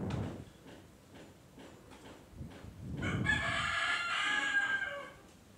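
A rooster crows once, one long call of about two seconds starting about three seconds in.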